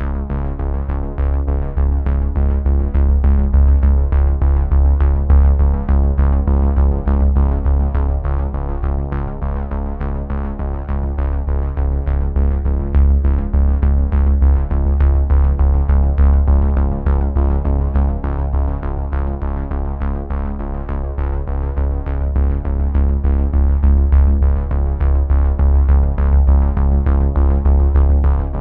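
Electronic background music with a steady beat and a heavy bass line.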